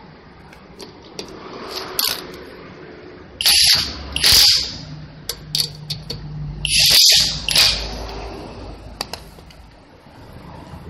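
Cordless impact wrench hammering on a car wheel's lug nuts, tightening them in three short runs: about three and a half, four and a half and seven seconds in. A few sharp clicks fall between them.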